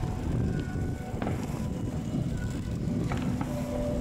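Steady low rumble of a boat's engine and wind, with a few faint sharp pops from distant fireworks bursting.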